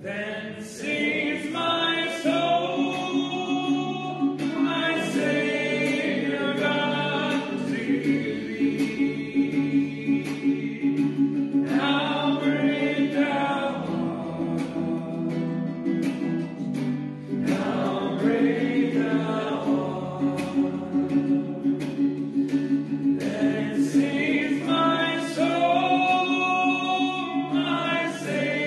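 A hymn sung by a group of voices over instrumental accompaniment that holds long, steady low notes beneath the melody.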